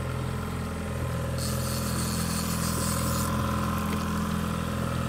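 Boat's outboard motor running steadily at low speed, an even hum with no change in pitch.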